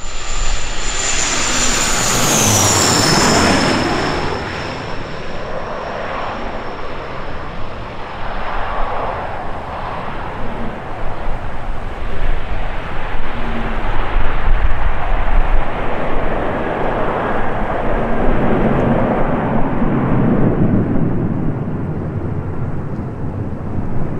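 Jet airliner passing low overhead: a high engine whine drops in pitch as it goes over, about two to three seconds in, and is followed by a long rumble of jet engine noise that swells and fades.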